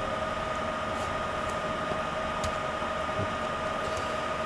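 Steady background hiss with a constant electrical hum, and a few faint clicks.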